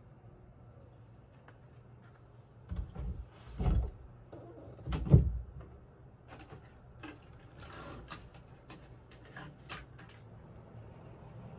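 Several dull thumps, the loudest about five seconds in, followed by a run of lighter clicks and taps, like things being handled or a door or cupboard being worked.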